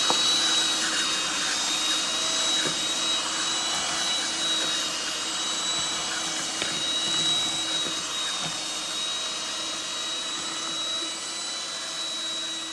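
Electric hand mixer running steadily with a constant high whine, its beaters whisking eggs into creamed butter and sugar.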